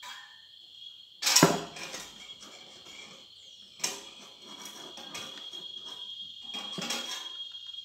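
Plastic bottle and aluminium can parts being handled and pressed together: crinkling and rustling with three sharp knocks, the loudest about a second and a half in. A steady high-pitched tone sounds in the background throughout.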